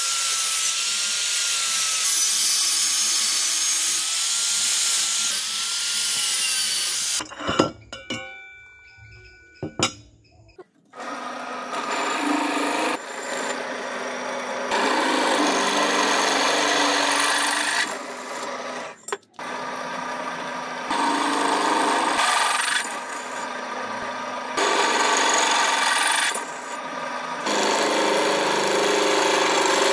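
An angle grinder cuts through steel channel with a steady high whine for about seven seconds. After a short gap with a few knocks, a drill press bores holes in a steel angle piece, stopping briefly once partway through.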